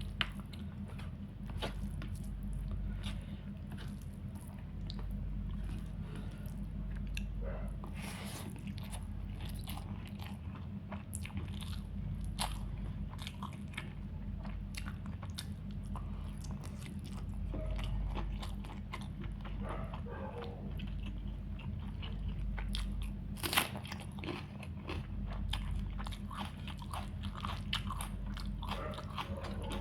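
Close-miked eating of chicken curry, rice and salad: irregular crunchy bites and chewing with small clicks, over a steady low hum. One sharper click comes about three-quarters of the way through.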